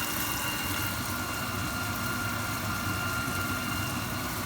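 Steady hiss of oil frying in a hot pan, over a constant low hum with a faint steady whine.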